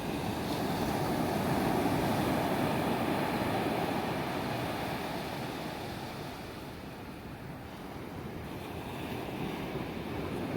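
Ocean surf breaking and washing up the beach: a steady rush that swells about two seconds in, eases off, and builds again near the end.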